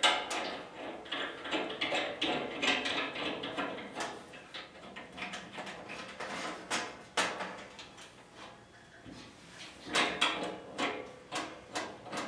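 Chrome faucet body being fitted and threaded by hand onto the inlet nipples on a stainless steel sink backsplash: irregular metal clicks, scrapes and rattles, busiest at the start and again about ten seconds in.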